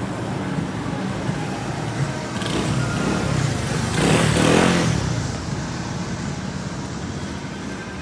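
A road vehicle passes close by over steady street noise. Its sound builds from about two and a half seconds in, peaks at around four seconds and fades a second later.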